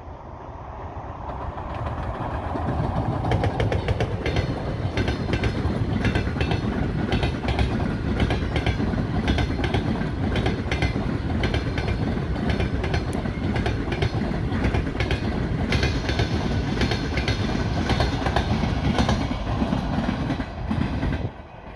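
Passenger train hauled by an EP20 electric locomotive passing close by. A rumble builds over the first few seconds as the locomotive comes up, then the coaches' wheels run past in a steady rumble, clicking over the rail joints.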